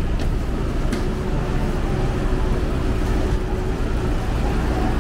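City street traffic noise: a steady low rumble with a steady hum that stops about four seconds in, and a few light clicks.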